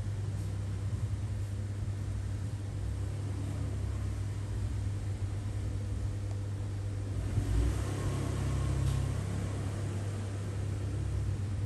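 A steady low mechanical hum with rumble, swelling briefly about eight seconds in.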